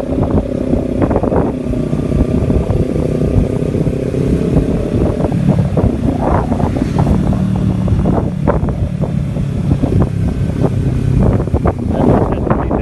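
A motor vehicle's engine running steadily, its pitch shifting a few times, with wind buffeting the microphone.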